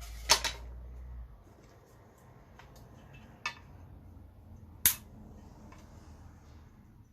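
Sharp knocks and clacks of parts and tools being handled on a workbench while an old computer is stripped for scrap, four in all with two loud ones; a low hum stops about a second in.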